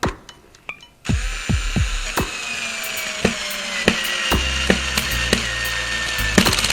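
Cordless screw gun driving a screw into wood on clutch setting 3. The motor whine starts about a second in and drops slowly in pitch as the screw goes in under load. Near the end the clutch ratchets rapidly as the screw reaches the torque limit of that setting.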